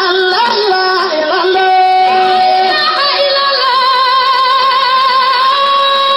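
Islamic zikr chant sung by a high voice, the melody turning quickly at first, then settling into long held notes that waver in the second half.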